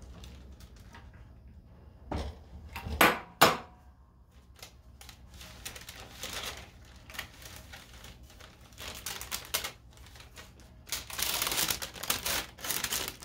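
Parchment paper rustling and crinkling as it is pulled from the press and opened around the pressed rosin puck. There are three sharp knocks between about two and three and a half seconds in, and the rustling is loudest near the end.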